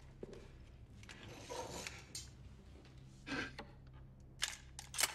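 Heavy breaths, then a click and the sharp snap of a crossbow firing near the end, the loudest sound.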